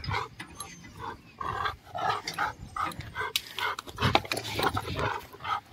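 Dog vocalising in a run of short sounds, about two or three a second.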